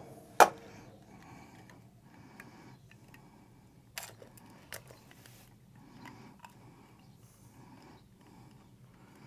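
An egg knocked sharply once on a bowl edge about half a second in, then quiet clicks and scrapes of the shell being worked apart to separate yolk from white, with two smaller taps about four seconds in.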